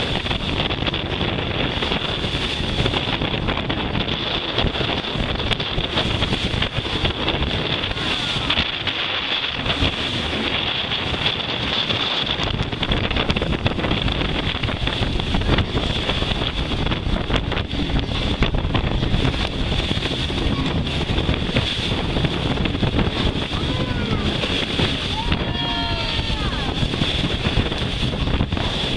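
Wind buffeting the microphone and water rushing and breaking along the hull of a sailboat heeled over under sail. About 25 seconds in, a brief wavering pitched call, like a voice, sounds over the rush.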